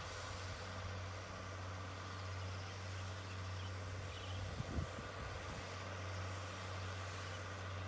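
Tractor engine running steadily while ploughing a field, heard from a distance as a constant low drone. A few short low bumps come about halfway through.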